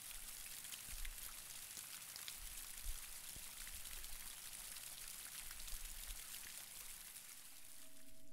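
Steady light rain falling, an even patter of drops.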